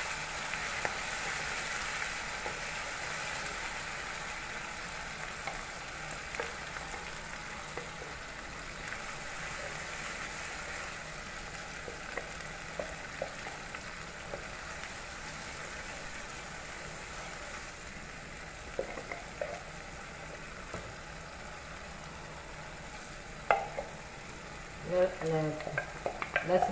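A paste sizzling in hot oil in a pan, a steady frying hiss that slowly dies down, with scattered light clicks of a spoon stirring and a sharper knock near the end.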